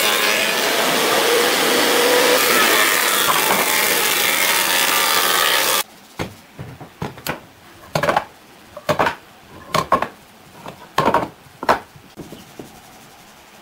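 A power tool running steadily on wood, which cuts off abruptly a little under halfway through. After it come about a dozen separate sharp knocks over the next six seconds.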